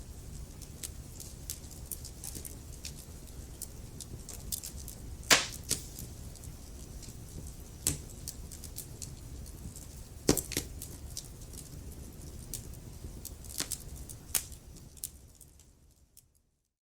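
Wood fire crackling, with a low steady rumble under frequent sharp pops and snaps. The loudest pops come about five and ten seconds in. Near the end it fades out to silence.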